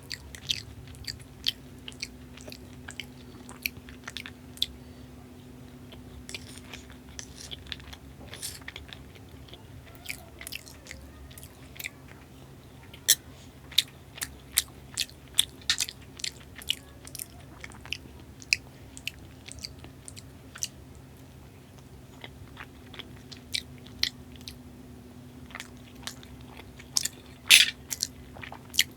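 Close-miked mouth sounds of a person chewing and biting Indian sweets: irregular clicks and smacks, in clusters, with the loudest few near the end. A faint steady hum underlies them.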